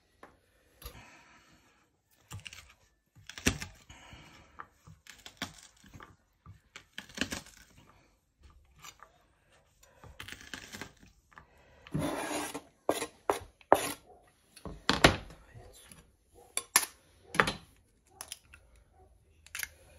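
Kitchen knife chopping onion and garlic on a plastic cutting board: irregular taps and knocks with some scraping across the board, and a cluster of louder knocks in the second half.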